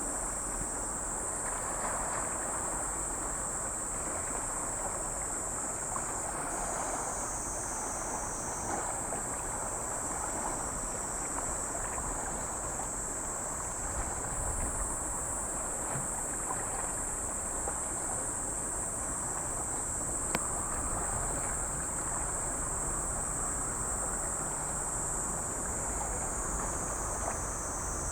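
Seaside wind and small waves as a steady rush, with a constant high-pitched hiss over it and a single sharp click about two-thirds of the way through.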